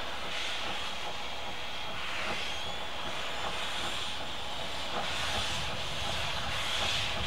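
NZR Ww class 4-6-4T steam tank locomotive giving off a steady hiss of escaping steam as it moves slowly, the sound growing a little louder near the end.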